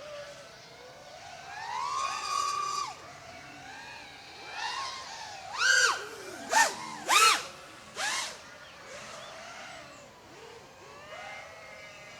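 FPV quadcopter motors whining, the pitch rising and falling with the throttle. A climb held for a moment about two seconds in, then four sharp throttle punches in quick succession around the middle.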